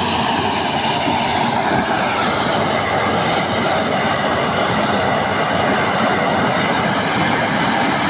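Combine harvester running at work: a loud, steady mechanical din of engine and machinery.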